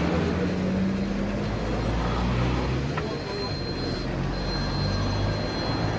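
Road traffic: a motor vehicle's engine running close by, low and steady. A thin, high, steady tone joins it from about three seconds in.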